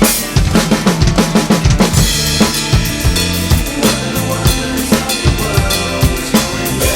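Drum kit played in a steady rock groove, with kick drum, snare and cymbals, along to a rock backing track.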